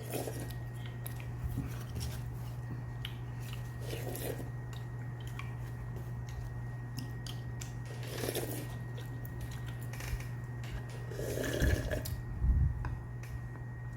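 A man eating goat stew with rice: chewing, with scattered small clicks and a few short louder bursts, over a steady low hum.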